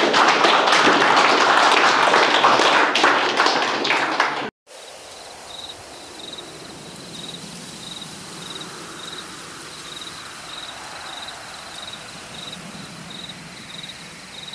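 Audience applause, a dense clatter of many hands clapping, which cuts off abruptly about four and a half seconds in. After it comes a quiet ambience with a soft, high chirp repeating about twice a second.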